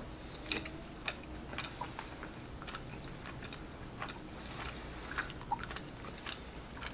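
People chewing mochi, a soft, sticky rice cake, with faint, irregular mouth clicks and smacks.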